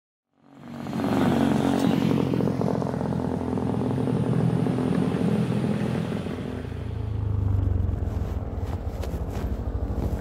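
Honda motor scooter's small engine running steadily as it rides along the road, starting about half a second in. The low hum swells for a moment near the end.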